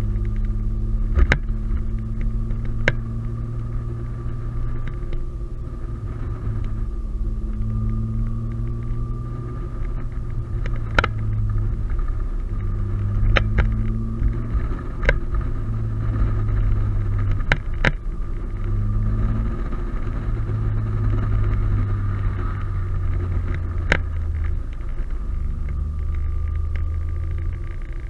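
Turbocharged Audi A4 3.0L V6, heard from inside the cabin, running at low speed: a steady low rumble that rises and falls every few seconds as the throttle comes on and off. A few sharp clicks sound through it.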